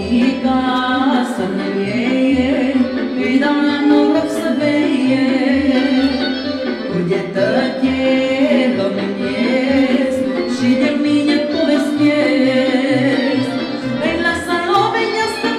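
A Romanian song: a melodic lead line gliding over a steady bass beat.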